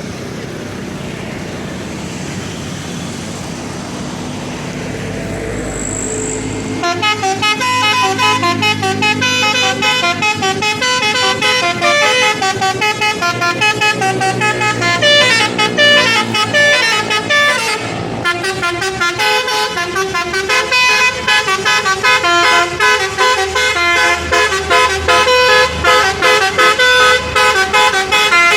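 Engine running steadily, then from about seven seconds in a 'telolet basuri' multi-tone musical horn on a truck plays a fast melody of short, loud notes, with a brief break near the middle.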